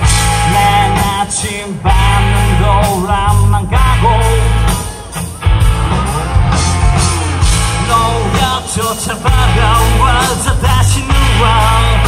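A live rock band plays a song with singing, electric guitars and a drum kit, amplified through the stage sound system. The bass and drums keep a steady beat.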